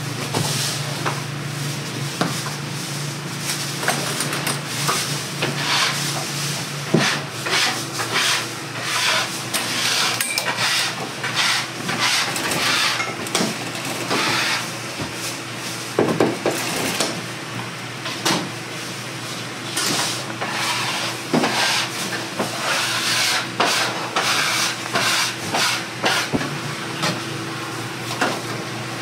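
Food-stall work sounds: irregular tapping, rustling and clattering over a steady hiss and a faint steady hum.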